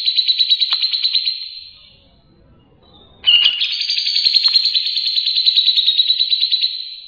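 Songbird singing a rapid, rattling trill of quickly repeated high notes, which fades out about a second and a half in. After a short pause a second trill starts suddenly about three seconds in and carries on.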